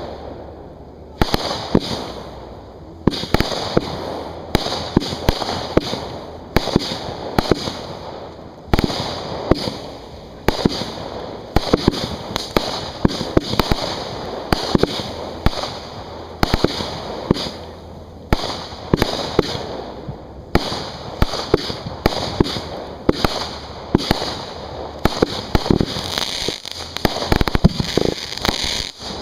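Professional firework display heard from beside the launch racks: aerial shells firing from their mortars and bursting overhead in a rapid, continuous run of bangs, which grow thickest near the end.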